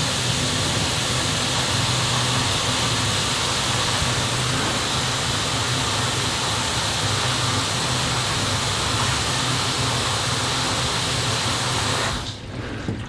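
Sink faucet running and water draining down through a PVC P-trap, a steady rushing hiss that stops suddenly about a second before the end. It is a test run of a drain fitting just re-tightened after leaking from the top, and the fitting no longer leaks.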